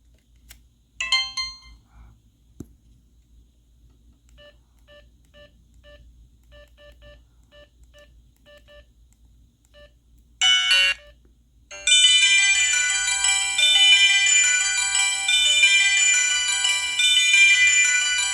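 Samsung SGH-T629 flip phone: a short tone about a second in, a string of faint short beeps, another short tone at about ten seconds, then a ringtone melody playing loudly from its speaker from about twelve seconds on.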